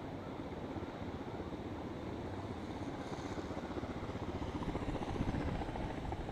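Yamaha SRX 600's single-cylinder four-stroke engine running with a low, pulsing beat, getting a little louder over the last couple of seconds.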